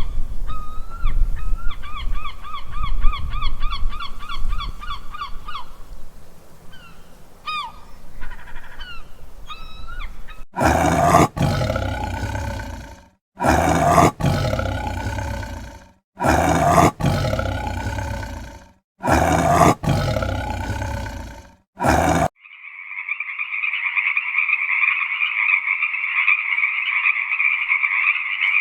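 A series of wild animal sound effects: a low rumble with repeated bird-like chirping trills, then five loud roars of a large animal, each two to three seconds long, and, from about three quarters of the way in, a steady chorus of croaking frogs.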